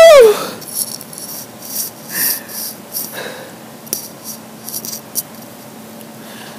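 A sung note trails off, falling in pitch, at the very start. Then there are faint scattered rustles and clicks, with a faint low hum in the last couple of seconds.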